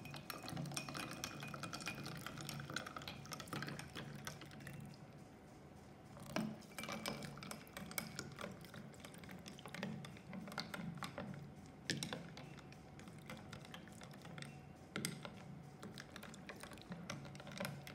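Chilled water poured from a copper bottle into glasses of ice, the pitch rising as the glass fills over the first few seconds. Throughout, a metal spoon stirs and makes many light clinks against the glass and the ice cubes.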